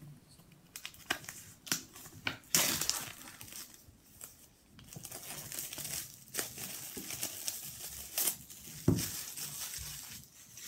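Cellophane shrink-wrap being pulled off a paperback book and crumpled in the hands: crinkling with many sharp crackles. There is a single thump about nine seconds in.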